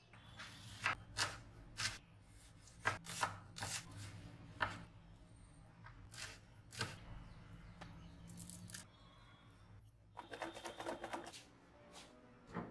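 Kitchen knife chopping green chilli on a wooden cutting board: single sharp knocks at irregular intervals, then a quick run of rapid knocks near the end.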